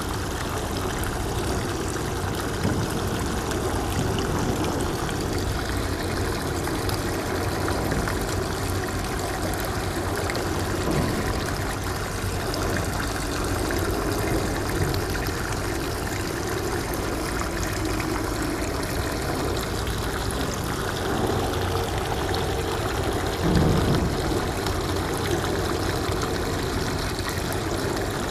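Shallow seawater trickling and lapping over the rocks of a tide pool, a steady wash of water.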